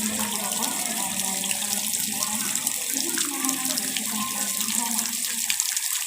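Flowing water running steadily: a constant splashing hiss with shifting gurgling tones underneath.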